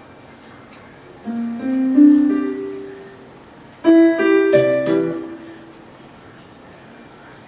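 Casio LK-300 electronic keyboard played with a piano voice: a short run of a few rising notes about a second in, then a second brief phrase of notes and a chord about four seconds in, each dying away.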